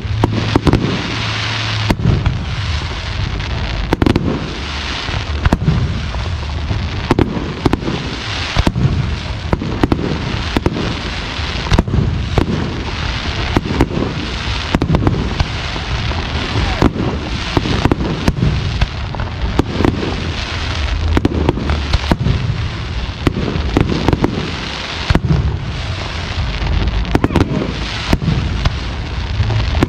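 Fireworks display: aerial shells bursting overhead, with sharp bangs every second or so over a continuous hiss and low rumble that swell and fade with each volley.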